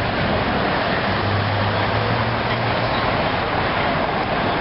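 Steady traffic noise in a busy city square, with a low vehicle engine hum that swells from about a second in and fades near the three-second mark.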